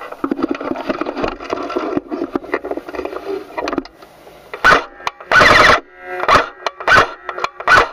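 Airsoft gun firing close to a camera mounted on it: several single shots and one short burst of about half a second, preceded by a few seconds of rattling and clicking from the gun being handled.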